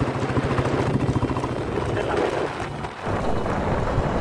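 Motorcycle engine running while riding, with a steady low hum under road and wind noise; the sound dips briefly about three seconds in.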